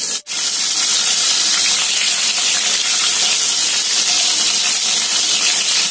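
Hot oil sizzling steadily in a frying pan as skewered giant river prawns shallow-fry lightly, only until they change colour. The sound cuts out for an instant just after the start.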